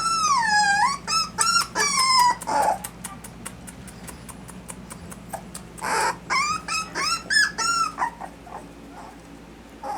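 Miniature dachshund puppies whining and yelping in high-pitched cries: one long wavering cry at the start, a quick run of short cries, a few quieter seconds, then another run of short cries about six seconds in.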